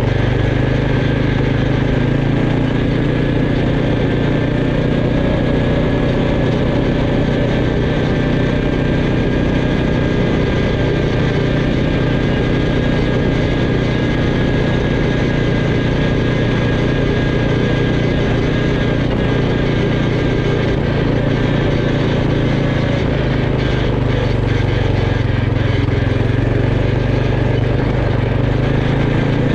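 Quad bike (ATV) engine running steadily under way, with a continuous even hum and no letup.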